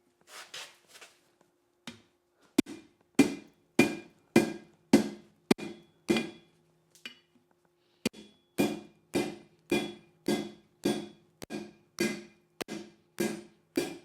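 Hand hammer striking leaf-spring steel on an anvil to draw it thinner: a steady series of blows, each with a short metallic ring. The blows come a little under two a second, stop briefly around the middle, then go on at about two a second.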